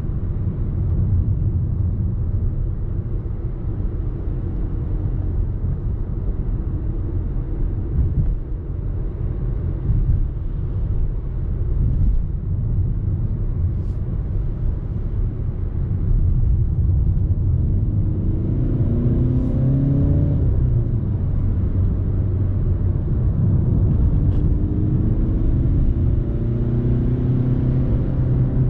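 Audi A3 30 TDI's 1.6-litre four-cylinder turbo-diesel engine and tyre rumble while driving. The engine note rises as the car pulls harder past the middle, and rises again near the end.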